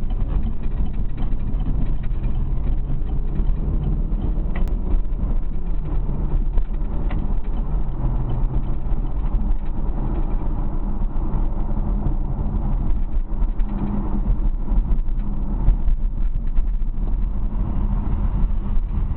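Chevrolet Camaro engine running with a steady low rumble, its pitch rising and falling slightly now and then.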